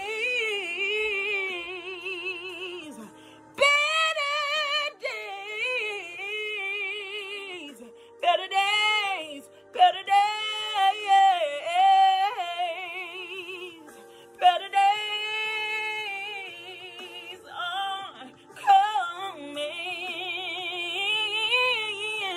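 A woman singing a gospel ballad solo, in long held phrases with wide vibrato and melismatic runs, pausing briefly for breath between lines.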